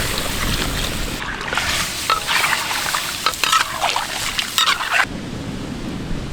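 Coconut milk being poured into a kadai of cooking turkey paya and stirred in, a liquid pouring sound with scrapes and clatter from the utensils. About five seconds in it gives way to a quieter, steady, lower noise.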